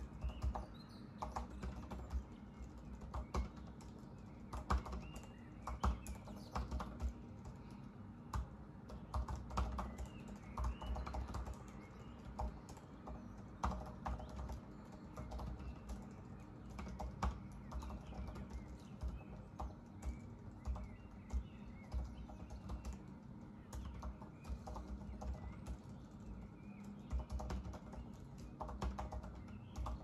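Typing on a Mac laptop keyboard: irregular runs of soft key clicks with short pauses between them. Faint bird chirps sound in the background.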